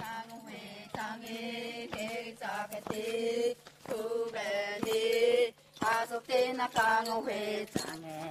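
Chanting voices holding and sliding between sung notes over a steady low drone, with a sharp beat about once a second.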